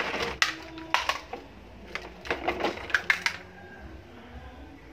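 Plastic toys clattering out of a tipping toy dump truck's bed onto stone paving tiles: sharp plastic clicks and knocks in a few quick clusters.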